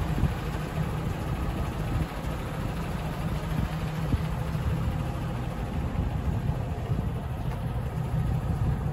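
Freightliner M2 106 medium-duty truck's engine idling steadily, a low even rumble.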